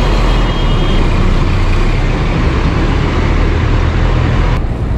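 Wind rushing over the microphone of a camera on a moving bicycle, a loud, steady rumble with road and traffic noise. The hiss thins out near the end.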